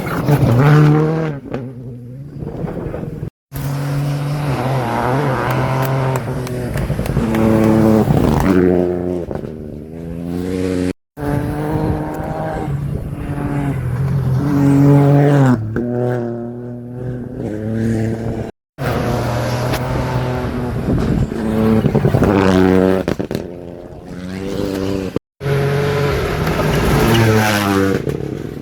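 Rally cars at speed on a special stage, their engines revving hard, rising and falling in pitch through gear changes. The sound comes as a string of short clips, cut abruptly about every seven seconds.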